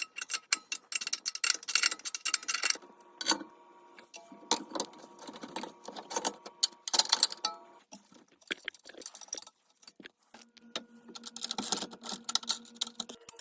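Socket ratchet clicking in quick runs, separated by short pauses, with light metal clinks.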